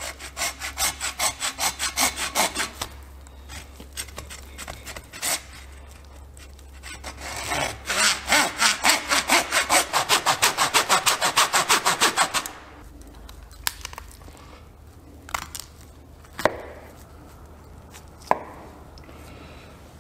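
Hand meat saw cutting through whitetail deer rib bone with rapid back-and-forth rasping strokes, about four a second. The sawing comes in two bouts, a short one and then a longer one after a pause of several seconds. A few sharp knocks follow near the end.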